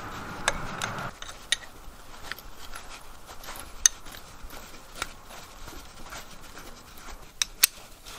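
Metal parts and a wrench clinking against the hydraulic control valve assembly of an International Harvester 300 Utility tractor as it is bolted on. There are scattered sharp clinks with light rubbing and scraping between them, the loudest clink near the middle. A faint steady background hum stops about a second in.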